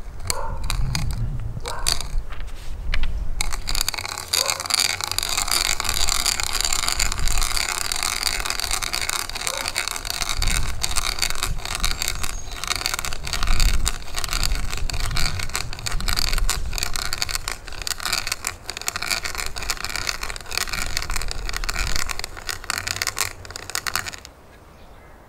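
Brace and bit boring into a slice of green ash log: the auger bit cuts and scrapes steadily as the brace is cranked round, with many small clicks and crackles of wood being cut. The noise stops near the end.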